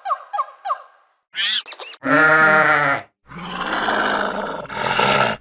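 A string of different animal calls, one after another: a run of short repeated bird chirps in the first second, a few quick rising chirps, then one held, pitched animal call of about a second, followed by two rough, noisy calls.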